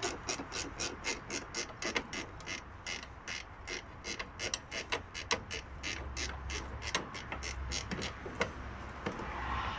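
Hand ratchet clicking in quick, even runs of about five clicks a second as a bolt is turned. The clicks thin out near the end.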